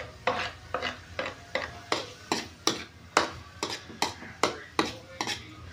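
Metal spatula clinking and scraping against a wok, about three or four strokes a second, as ginger, onion and garlic are stirred while they sauté.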